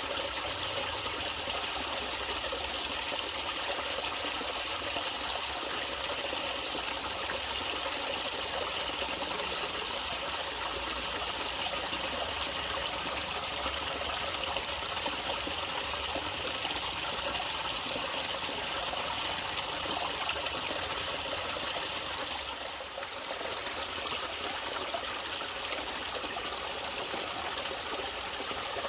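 Natural water trickling and flowing steadily, like a small stream running over stones, briefly softening about two-thirds of the way through.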